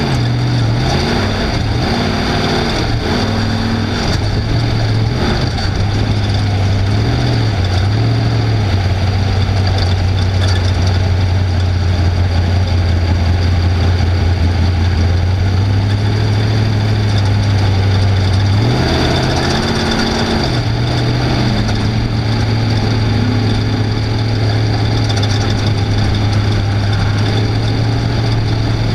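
Off-road race vehicle's engine running at low revs with a low, mostly steady note. It wavers up and down over the first several seconds, rises briefly in pitch about two-thirds of the way through, then settles back.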